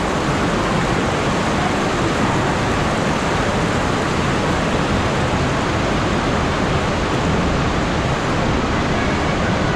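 Shallow creek water rushing over rocks, a steady loud rush with no break.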